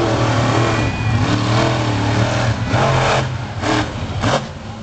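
Monster truck engines racing on a dirt track, revving up and down in repeated surges under a steady low drone, fading somewhat near the end.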